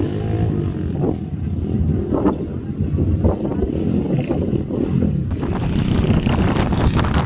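Pit bike's small single-cylinder four-stroke engine running and revving on a dirt track, the pitch rising and falling with the throttle. About five seconds in the sound turns brighter.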